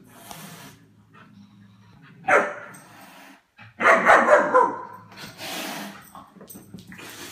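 German Shepherd puppy barking during play with cats. One bark comes about two seconds in, then a louder, longer run of barks a second and a half later, and a fainter bark after that.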